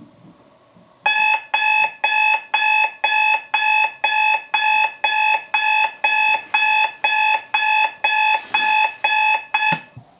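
Digital alarm clock beeping, about two beeps a second, each beep a bright electronic tone with several stacked pitches. Near the end there is a rustle, then the beeping cuts off suddenly with a short knock.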